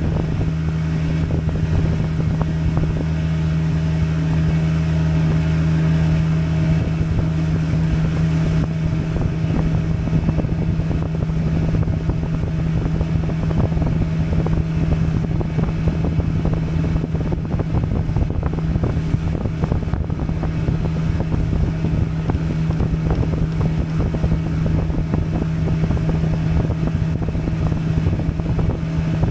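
Small boat's motor running at a steady cruising speed, a constant, even hum that does not change.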